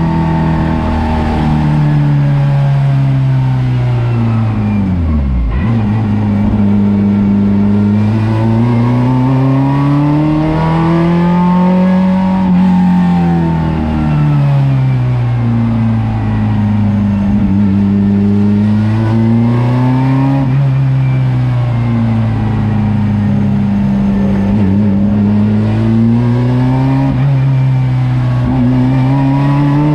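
Race car engine heard from inside the stripped, roll-caged cabin, its note climbing and easing off in long slow sweeps as the driver accelerates and lifts. About five seconds in the revs drop sharply.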